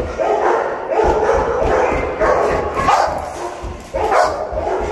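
Presa Canario barking over and over, short barks coming roughly twice a second.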